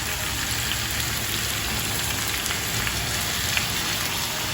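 Chicken frying in a pan with oil and masala: a steady sizzle with faint crackles.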